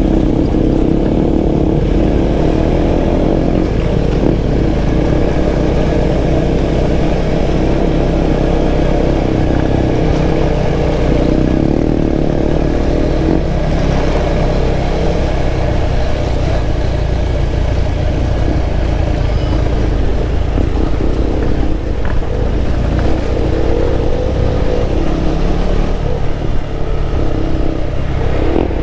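KTM 390 Adventure's single-cylinder engine running steadily under way on a dirt road, heard from the bike itself.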